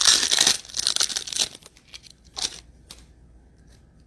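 Trading card pack wrapper being torn open and crinkled, loudest in the first second and a half, with a shorter rustle about two and a half seconds in and a small click just after.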